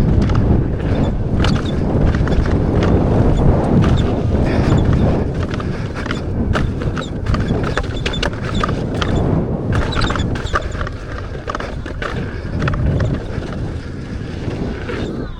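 Wind buffeting the microphone in a steady rumble, with frequent short clicks and knocks like tyre and gear rattle over a dirt trail, as heard while out on an electric unicycle.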